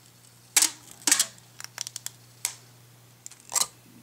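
Clear plastic packaging being handled: a pull tab on the case is peeled off and the lid worked loose. It gives a series of short, sharp plastic clicks and crackles, the loudest about half a second and a second in and again near the end.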